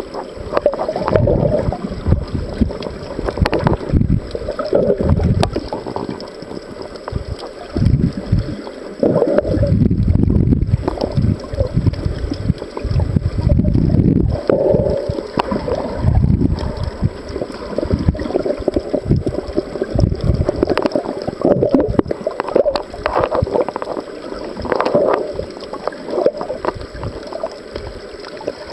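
Muffled underwater water noise picked up by a snorkeler's camera: water surging and gurgling around the housing in swells every few seconds, with scattered small clicks.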